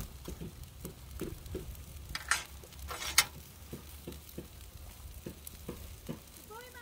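Dry grass blades crackling and rustling as a monkey plucks and handles them, a short crackle every third of a second or so, with two louder crisp snaps about two and three seconds in.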